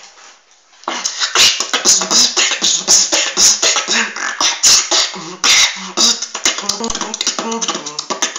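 Freestyle beatboxing: a human beatboxer's mouth making rapid kick, snare and click sounds in a fast rhythm, with low pitched hummed notes woven in. It starts about a second in after a brief pause.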